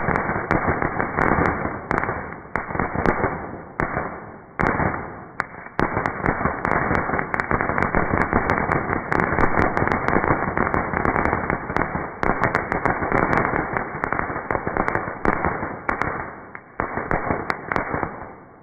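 Fireworks crackling and popping in a dense, continuous rapid-fire barrage, with a brief lull about four seconds in, dying away near the end.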